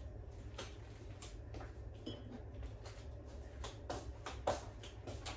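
Faint scattered taps and clicks of someone moving about a small kitchen and handling things at a cabinet, with a sharper click near the end, over a low steady hum.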